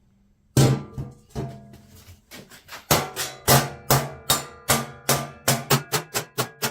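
Hand hammer striking hot stainless steel on an anvil, the blows ringing and quickening to about four a second.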